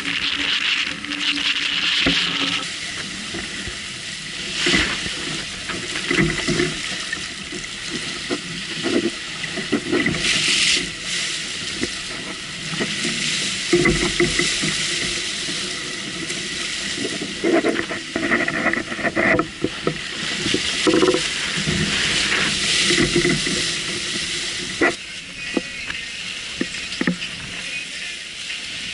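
Water rushing and splashing along the hull of a heeled sailboat under sail, surging irregularly as waves slap against the side.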